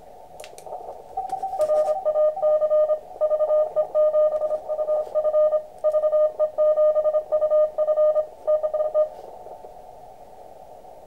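Morse code (CW) from a contest station, received on an Elecraft KX2 and heard as a keyed tone of about 600 Hz over steady receiver hiss that the CW filter narrows. The code starts about a second and a half in and stops about two seconds before the end, leaving only the hiss.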